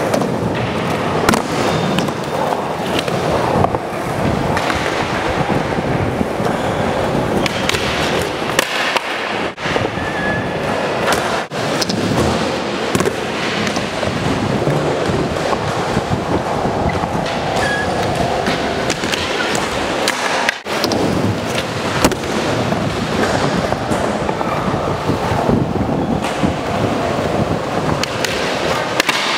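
Skateboard wheels rolling on smooth concrete in a steady rumble, broken by frequent sharp clacks and knocks from tricks, landings and board hits on a ledge.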